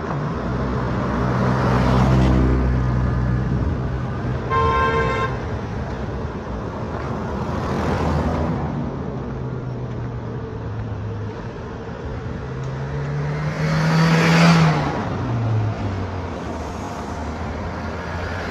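Street traffic: several motor vehicles drive past one after another, their engines running, with the loudest pass about fourteen seconds in. A car horn gives one short toot about four and a half seconds in.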